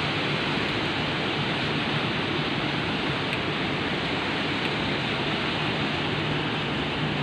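Heavy rain pouring steadily, an even rushing hiss, with a faint steady low hum beneath it.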